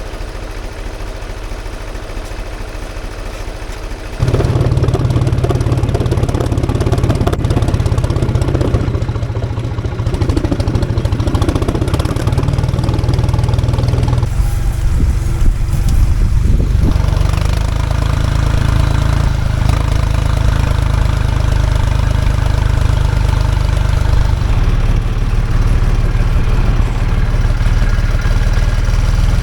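Tractor engine running steadily, quieter at first, then markedly louder about four seconds in and staying loud.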